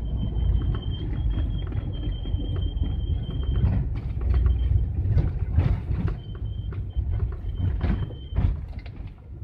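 Cab noise of a GAZelle van driving at highway speed: a steady low rumble of engine and tyres on the road, with scattered knocks and rattles as the van rides over the surface. A thin high whistle comes and goes over it.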